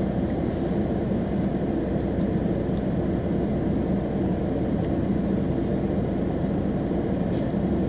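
Steady low hum of a car's running engine and air-conditioning fan, heard from inside the cabin, with a few faint ticks.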